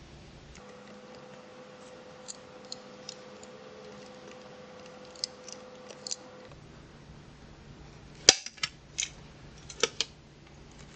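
Hand pop-rivet gun setting a rivet through a leather strap: light clicks of the tool being handled, then a single sharp snap about eight seconds in as the rivet's mandrel breaks off, followed by several quick metallic clicks of the gun's handles and jaws.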